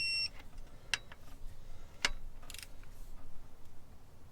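A short high electronic beep right at the start from a digital torque wrench set to 40 foot-pounds, then a few sharp metallic clicks about a second apart as the wrench is worked on an engine bolt.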